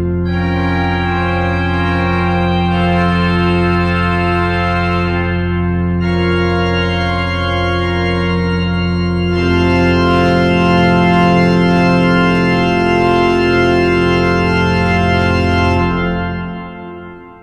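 Hauptwerk virtual pipe organ playing sustained full chords over a held low pedal note, the chords changing every few seconds. About a second before the end the last chord is released and dies away.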